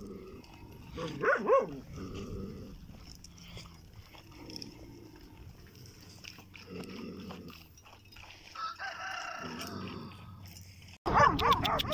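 A rooster crowing in the background among dogs in a farmyard, with a short loud animal call about a second and a half in and a longer steady call around nine seconds. Near the end the sound jumps abruptly much louder.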